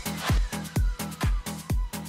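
Electronic dance music with a steady kick drum, about two beats a second, under a slowly falling synth tone.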